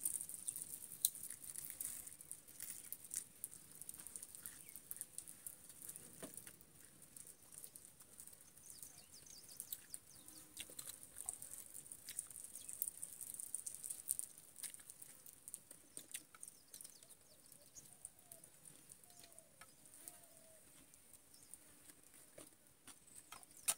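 Faint, steady high-pitched drone of insects, stronger in the first half, with scattered small clicks and taps.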